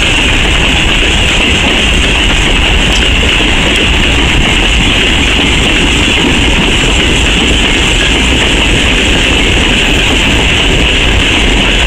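Broad-gauge open coal wagons rolling past on the rails: a loud, steady rolling noise with a strong high-pitched hiss and a low rumble, without distinct rail-joint clicks.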